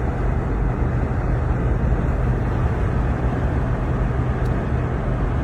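An engine running steadily: a dense, even rumble with a low hum under it.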